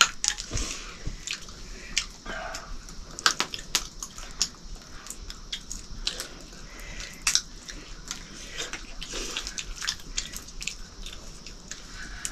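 Fried acorns being cracked open between the teeth and shelled by hand: irregular sharp cracks and crunches, a few a second, with chewing.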